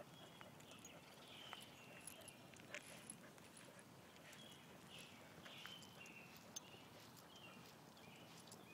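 Faint outdoor quiet: light footsteps and a chow chow's claws ticking on a concrete sidewalk as it walks on a leash, with faint short bird chirps.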